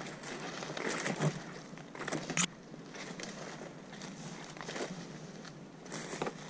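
Footsteps pushing through low brush and dead branches, with irregular crackling and crunching of twigs and foliage; the sharpest snaps come about two seconds in.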